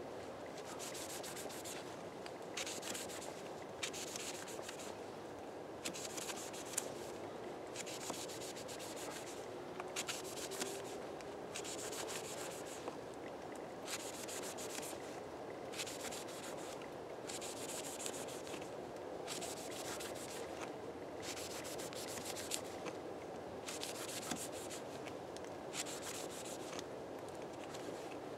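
Kizlyar Kalibr dagger's blade slicing through linen-hemp rope against a wooden log, one short scraping stroke about every second, over and over.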